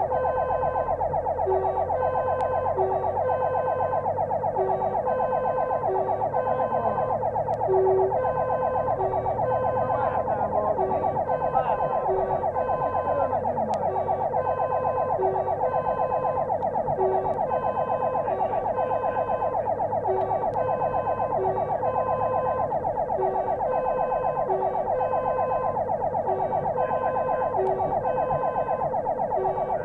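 Fire engine's siren sounding continuously in a fast warble while the engine runs underneath, heard from the fire engine itself during an emergency run. Right at the end the siren switches to falling wails.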